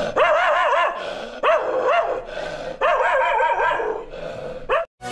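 A dog vocalizing in a run of drawn-out calls, about four, each wavering up and down in pitch, with short breaks between them.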